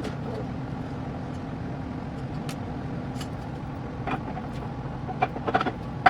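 Scattered clicks and metallic clinks of hand tools and parts during a big-block engine teardown, a few louder ones together near the end, over a steady low hum.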